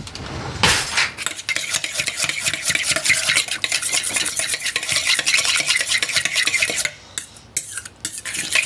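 A utensil briskly whisking olive oil into a mayonnaise dressing in a stainless steel bowl: rapid, even scraping strokes against the metal, blending the oil in and loosening the dressing. There is one sharp knock just under a second in, and a short pause in the strokes near the end.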